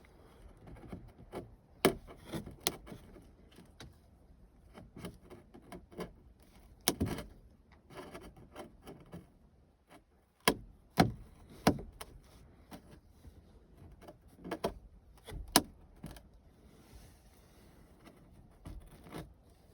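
Flush-cut side cutters snipping through a thin fiberglass strip along a car sunroof opening: a series of irregular sharp snaps, with faint rubbing and handling between the cuts.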